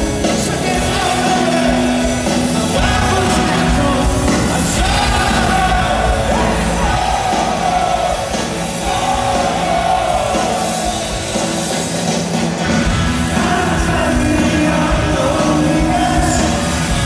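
A rock band playing live with electric guitars, bass and drums and a sung melody, recorded on a phone from within the crowd at an arena concert.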